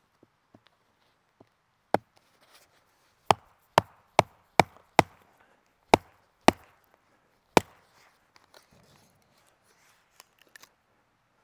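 Splitting a short round of firewood down to its drier core: about nine sharp wooden knocks, spaced half a second to a second apart, then only faint small ticks.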